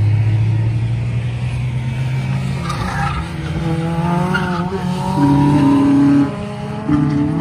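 Cars running hard through a race-circuit corner: engines accelerating with rising pitch, a brief lift off the throttle about six seconds in before the engine picks up again, and tyres squealing briefly around three seconds in.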